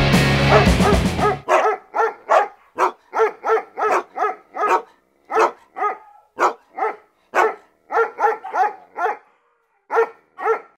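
Background music cuts off about a second and a half in. Then a dog barks over and over, a couple of dozen short barks at two to three a second, with a brief pause near the end.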